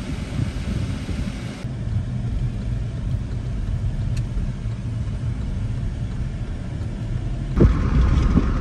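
Steady low rumble of a car driving, heard from inside the cabin: engine and road noise. The sound shifts abruptly about two seconds in and again near the end, where it becomes louder and brighter.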